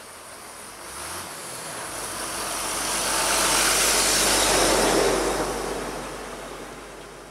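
A road vehicle driving past close by: tyre and engine noise swells to its loudest about halfway through, then fades away.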